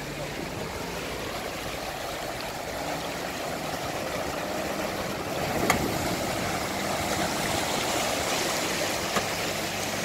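Fast river water rushing and splashing as a 4x4 SUV wades through it, with the engine's low hum running under the water noise. The water grows a little louder toward the middle, and there is a sharp knock a little before halfway.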